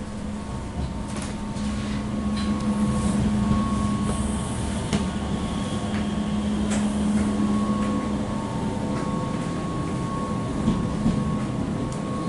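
Running noise inside a double-deck Intercity 2 coach on the move: a steady rumble of the wheels on the rails with a constant hum, and a few sharp clicks scattered through it.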